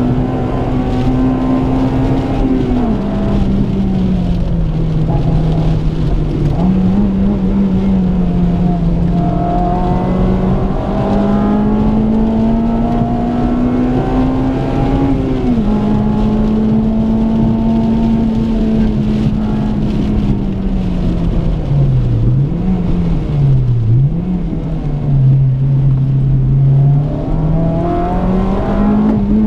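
Honda Civic FD2 Type R's 2.0-litre i-VTEC four-cylinder engine heard from inside the cabin, worked hard at high revs on a rally stage. Its note rises under power and drops sharply at gear changes. About three-quarters through it dips and recovers twice as the car slows.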